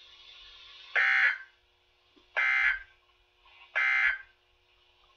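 Three short, identical bursts of buzzy digital data tones, about a second and a half apart: the EAS/SAME end-of-message code from a NOAA Weather Radio broadcast, which marks the close of the Required Weekly Test.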